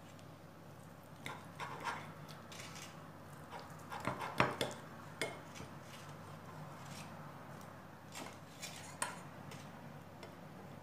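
A table knife slicing a beef embutido roll on a ceramic plate, its blade clicking and scraping against the plate in scattered light knocks, the loudest about four seconds in.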